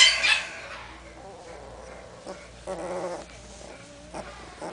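16-day-old bloodhound puppies whimpering in their sleep: a loud squeal as it opens, then a short whine about three seconds in and a fainter one soon after.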